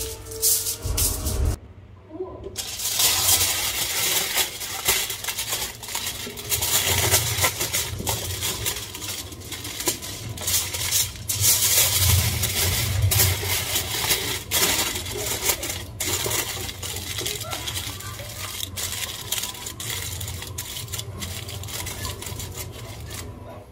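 Aluminium foil crinkling and crackling as it is folded and pressed by hand around a ham. The crackling breaks off briefly about two seconds in, then carries on in a dense run of small sharp crackles.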